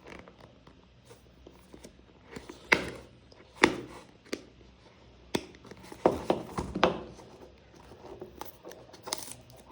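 Plastic shrink-wrap seal being torn and peeled off a cardboard product box: irregular crinkling and sharp scratchy taps, with several louder snaps in the middle.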